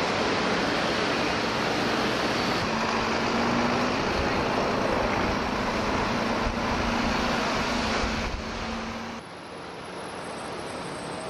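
City road traffic heard from the upper deck of a bus: a steady rush of engines and tyres with a faint low engine hum. About nine seconds in it drops to a quieter rush.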